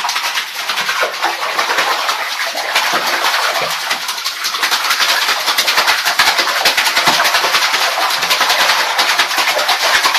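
Hands beating rapidly on the water in a filled bathtub: a fast, continuous splashing and slapping played as drumming on the water surface.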